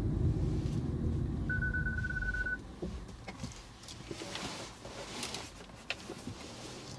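Low road and tyre rumble in the cabin of a Hyundai Ioniq Electric as it slows down, dying away about two and a half seconds in as the car comes to a stop. A single steady electronic beep lasting about a second sounds over it, followed by faint clicks and rustles inside the car.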